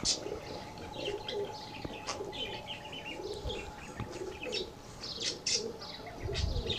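Domestic pigeons cooing in low, rolling calls, with many short high chirps from small birds throughout.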